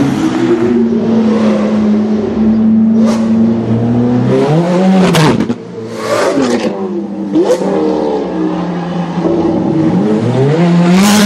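Ferrari 430 Scuderia's V8 revving and accelerating hard, its pitch climbing and dropping again and again, with several sharp cracks along the way.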